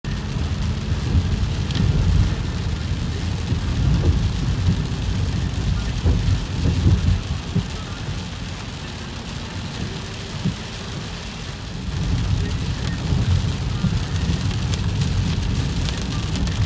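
Heavy rain and road noise heard from inside a moving car's cabin: a steady low rumble of tyres on the wet road and engine, with rain pattering on the windshield. The rumble eases for a few seconds in the middle.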